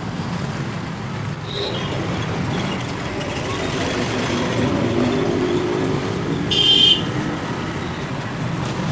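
Steady low background rumble, with a brief high-pitched tone about seven seconds in.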